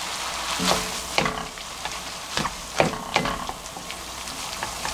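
Bracken fern and perilla seed powder being stir-fried in a wok: a soft sizzle with about five sharp clicks of wooden chopsticks and a wooden spatula against the pan.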